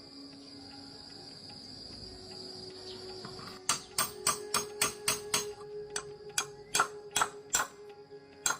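A steady high-pitched ringing hum, then, a little under halfway in, a quick run of sharp metallic-sounding taps, about three a second, like a hammer striking metal.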